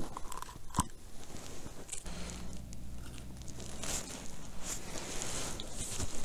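Soft rustling and crunching handling noise, with a sharp click about a second in and short scraping rustles in the second half.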